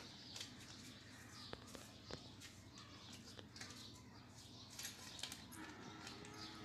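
Near silence with a few faint sharp clicks, fingernails pinching nits off strands of hair, and faint high chirps in the background.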